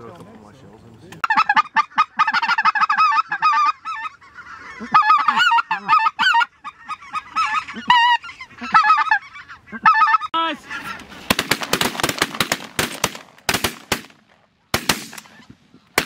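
Goose calls blown rapidly: a long run of short, quick honks and clucks, loud and fast, as hunters call to incoming geese. The calling stops about ten seconds in, giving way to a few seconds of rapid clicking and crackling noise.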